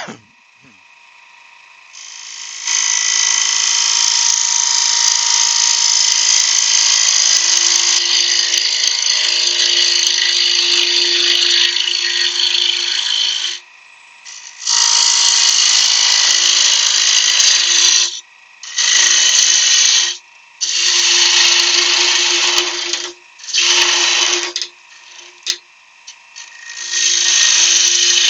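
Wood lathe running with a steady whine while a gouge cuts into spinning spalted beech, hollowing the box. There is one long cut of about eleven seconds, then five shorter cuts with brief pauses between them.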